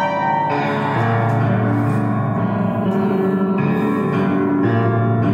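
Ambient music of sustained chords that shift to new pitches roughly once a second.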